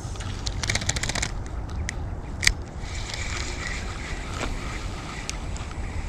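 Wind buffeting the microphone, a steady low rumble, with a quick run of clicks about a second in and one sharp click near the middle; a faint thin whir runs under the second half.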